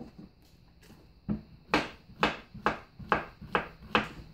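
A kitchen knife chopping yellow squash on a cutting board: seven sharp knocks at an even pace of about two a second, starting a little over a second in.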